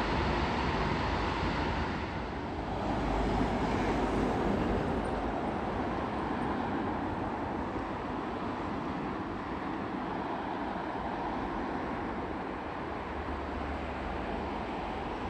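Steady roar of passing road traffic, swelling for a couple of seconds about two seconds in.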